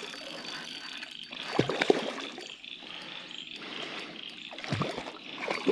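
Hooked common carp splashing a few times at the surface as it is played in toward the net, over a steady high trilling chorus of crickets.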